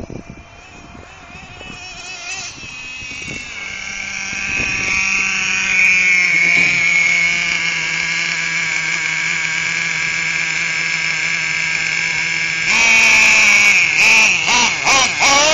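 Small glow-plug engine of a nitro RC truck running at a steady high pitch, growing louder over the first few seconds. Near the end it gets suddenly louder and its pitch wavers up and down as it revs.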